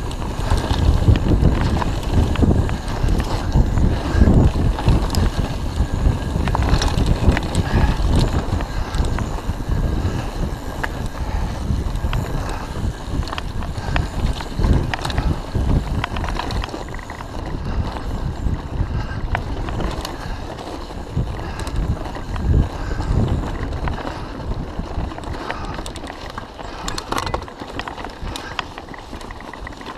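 Mountain bike riding fast over a dirt forest singletrack: wind buffeting the microphone, tyres rumbling over the dirt, and frequent rattles and knocks from the bike over bumps. It is loudest in the first half and eases somewhat later on.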